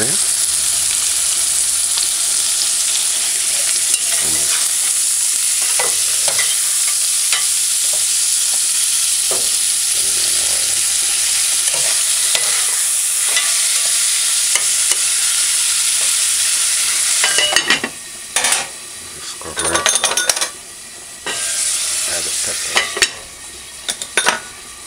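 Ackee and saltfish frying in a pot, a steady sizzle with small scrapes and clicks of stirring. About 17 seconds in, the sizzle breaks up into short bursts with quiet gaps between them.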